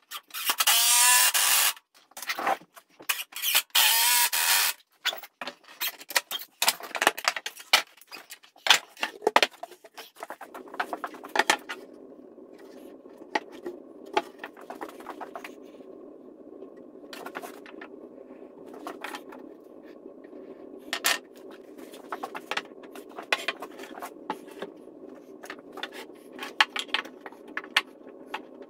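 Cordless drill driving screws into wood in two loud runs, its motor whine rising and falling, followed by scattered knocks and clunks of wooden boards being handled. From about ten seconds in, a steady low hum sits under occasional wooden knocks.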